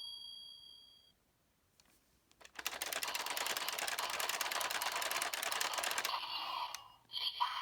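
A rapid, even run of plastic clicks, like a ratchet, for about three seconds from a spinning toy gear mechanism. It follows the fading tail of an electronic chime from the toy, and near the end the toy's synthesized voice and music begin.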